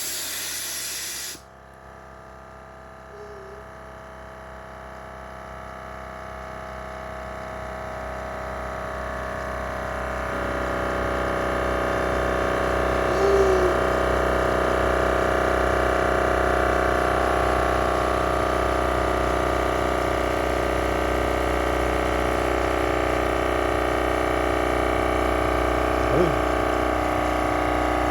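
Battery-powered Milwaukee air compressor running on a DeWalt battery: a brief hiss in the first second or so, then a steady motor-and-pump whine that grows louder over about ten seconds and then holds steady.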